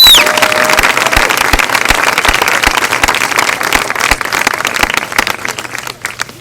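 Crowd applauding and cheering, thinning out and dying away over the last second or so, with a short shrill whistle right at the start and steady low thumps at an even beat, about two and a half a second, beneath the clapping.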